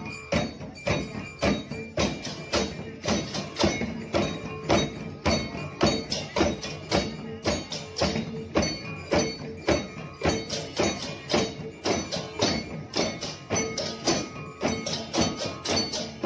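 Balinese parade percussion: kendang drums and cengceng cymbals struck together in a fast, steady beat, with a ringing note held underneath.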